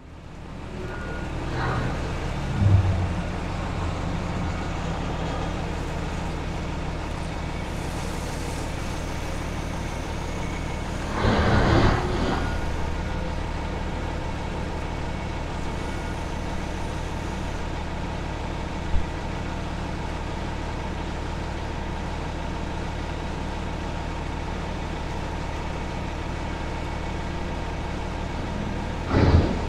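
Heavy vehicle engine idling steadily, with a louder rush of noise about twelve seconds in and another near the end.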